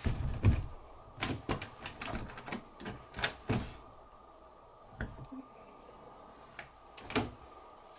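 Sharp clicks and knocks, a quick run for the first few seconds and then a few single clicks, one loud click near the end: a brass doorknob being turned and rattled, its latch clicking.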